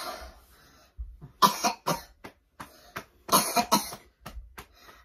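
A person coughing: short, sharp coughs in two pairs, the first about a second and a half in and the second about three and a half seconds in, with a few smaller ones between.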